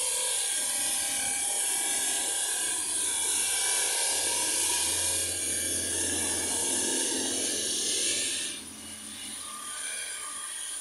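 Steady high-pitched whine and hiss of a marble-cutting machine running. It drops away sharply about eight and a half seconds in.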